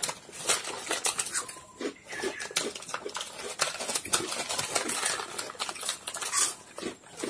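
Plastic snack packets crinkling as hands dig in for chips, with crisp potato crackers crunching as they are bitten; a rapid, irregular crackle throughout.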